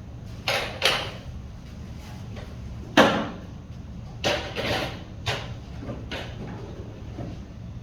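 A series of about seven sharp knocks and clatters at uneven intervals, the loudest about three seconds in, each with a short ringing tail.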